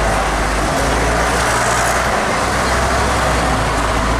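City street traffic noise: passing cars and buses with a steady low rumble under a wash of road noise.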